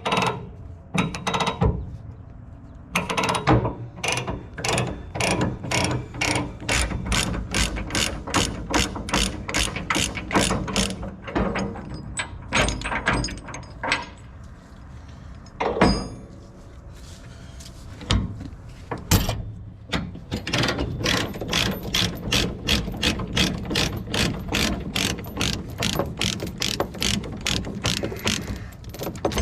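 A hand ratchet being worked, its pawl clicking about three times a second in two long runs with short pauses and a few single knocks between them.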